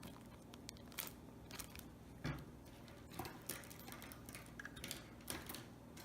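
Faint clicks and handling noises of small plastic quadcopter parts being handled and pushed into place, with one louder knock about two seconds in.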